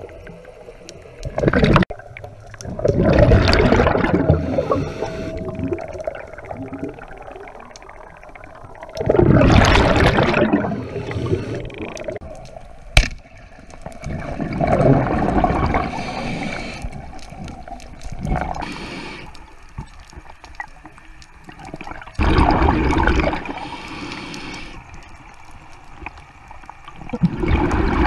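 Scuba diver's regulator underwater: bursts of exhaled bubbles gurgling about every four to six seconds, with quieter water noise between them. A couple of sharp clicks are heard, one near the start and one about halfway through.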